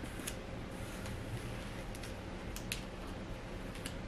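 A few short, faint swishes of a comb and fingers working through curled wig hair, once near the start, twice in quick succession past halfway and once near the end, over a low steady room hum.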